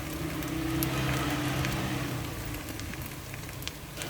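Fried rice sizzling in the hot pot of a rice cooker as sweet soy sauce goes in, the sizzle swelling about a second in, with a few light clicks and a low steady hum underneath.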